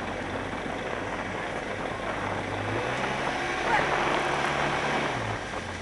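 Small speedboat's motor running steadily over the rush of water and wind, its pitch rising as it speeds up about three seconds in and falling back near the end.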